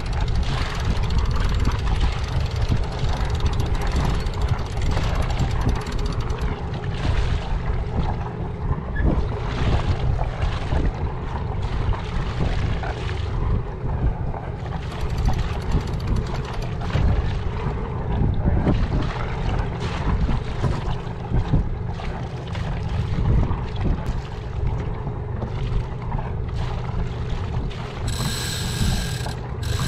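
Wind buffeting the microphone aboard a sailboat under way, with a gusty rumble that rises and falls. A brief high-pitched tone sounds near the end.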